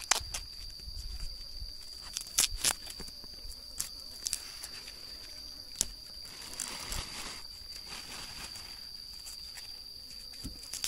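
Forest ambience: a steady high-pitched insect drone, with scattered sharp snaps and a rustle of brush about six to eight seconds in.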